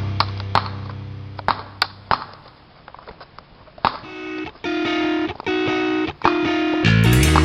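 Rock music with distorted electric guitar: a held chord fades out with a few sharp drum hits, then a choppy, stop-start guitar riff comes in about four seconds in, and the full band kicks in louder near the end.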